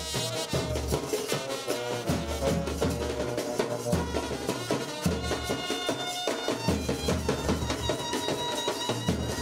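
Music with drums and percussion over a heavy, steady bass beat.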